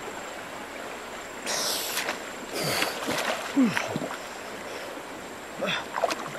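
Water splashing and sloshing as a man wades through a river and handles a floating pile of brush, with gurgles, over the steady rush of the current. The louder splashes come about a second and a half in, around three seconds in, and again near the end.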